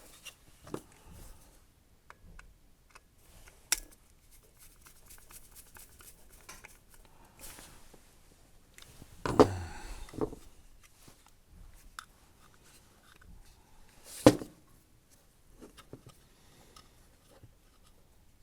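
Hand-work noises of wiring up a chain-hoist pendant controller: scattered small clicks and taps of tools, screws and the controller parts, with a brief rustle and two sharp knocks, one about halfway through and one about three-quarters of the way through.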